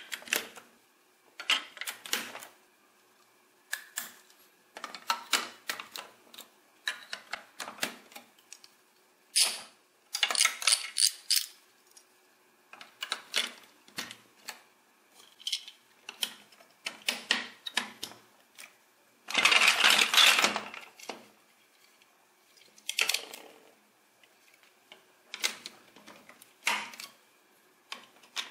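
Large plastic building bricks clicking and clattering as they are handled and snapped together, in short bursts with quiet gaps between. A longer, louder clatter of plastic about twenty seconds in.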